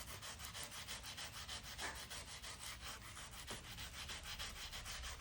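Coarse sandpaper rubbed in quick, even back-and-forth strokes over the painted surface of a sculpture, sanding down chipped paint. The sound is faint.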